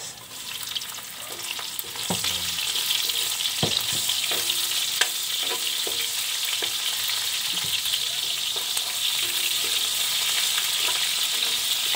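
Sliced onion and garlic frying in hot oil in a wok, the sizzle growing louder about two seconds in as the onion goes in. A metal spatula scrapes and taps against the pan as they are stirred: the sauté (gisa) stage of the dish.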